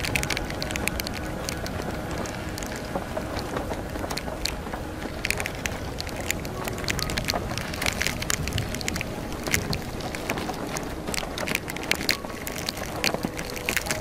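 Storm wind blowing hard across the microphone of a moored sailboat. Wind-driven rain and spray strike the boat in many sharp ticks throughout.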